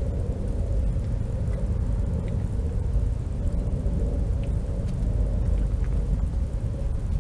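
A steady low rumble with a few faint clicks above it.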